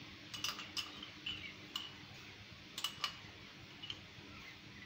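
Light clicks and taps of a spoon against a sugar container as sugar is scooped out and added to the pan, scattered irregularly, with two close together about three seconds in.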